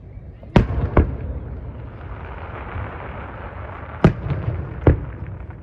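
Aerial firework shells bursting: four sharp booms, a pair about half a second apart soon after the start and another pair near the end, each followed by a rolling echo.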